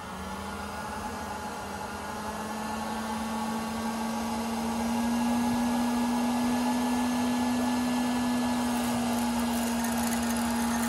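Air popcorn popper run as a coffee roaster: its fan motor is blowing hot air through a batch of green coffee beans. The hum and air rush rise gradually in pitch and loudness as the voltage controller is turned up, then hold steady about halfway through.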